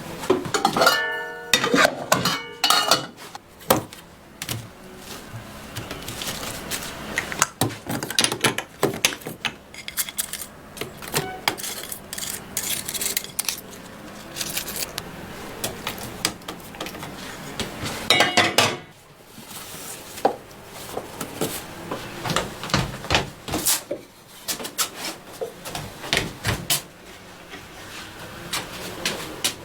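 Metal cookware and utensils clanking and clinking in irregular knocks throughout, with a ringing clink about a second in and a loud cluster of knocks a little past halfway.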